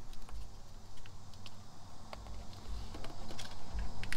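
Scattered small clicks and taps with a few dull low thumps: hands stretching the last of the sunshade's bungee cords and hooking it in place.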